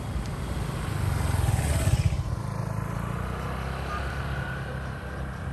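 Motor scooter engine passing close by on a dirt road. It grows loudest about two seconds in as the scooter goes past, then runs on lower and steadier as it moves away.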